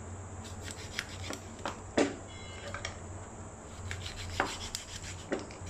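Meat cleaver working through a raw whole duck on a cutting board: the blade scrapes and saws through tough skin and joint, with a few sharp knocks of the blade on the board, the loudest about two seconds in.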